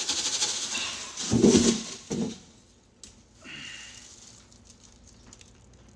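Rainbow sprinkles pouring from a jar and pattering onto a heap of ice cream in a glass bowl for about a second, followed by two short low voice sounds, then quiet.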